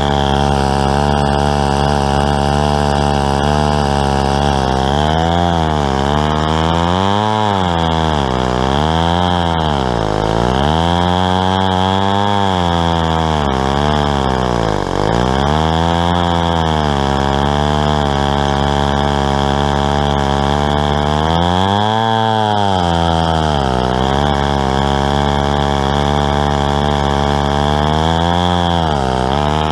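Stihl 090 two-stroke chainsaw, untuned, running at full throttle as it rips through a log on a homemade chainsaw mill. The engine pitch repeatedly sags under load and climbs back, with its deepest dips about halfway through and again about three-quarters of the way in.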